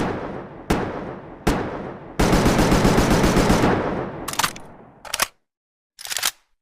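AKM assault rifle gunfire sound effect: three single shots, each with an echoing tail, then a full-auto burst of about ten rounds a second lasting about a second and a half, followed by a few short clicks.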